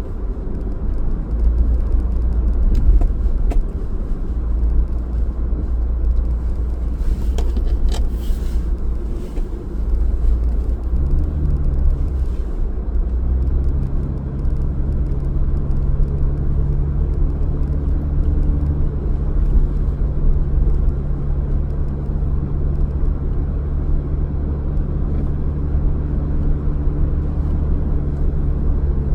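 A car driving, heard from inside: steady low engine and road rumble, with a brief hiss about a quarter of the way in and a steady low hum joining about halfway through.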